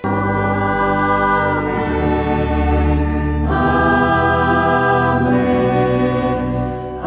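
Choir singing a slow sung Amen in long held chords, moving to a new chord about every second and a half to two seconds and easing off near the end.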